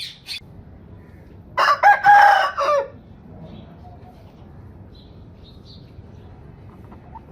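Rooster crowing once, a loud cock-a-doodle-doo of several syllables lasting just over a second, about one and a half seconds in. Two brief sharp high calls come right at the start.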